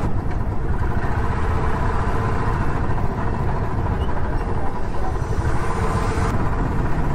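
Royal Enfield single-cylinder motorcycle engine running steadily while riding at low speed in traffic, heard close up from the bike-mounted microphone. A faint steady tone joins in for a few seconds in the middle.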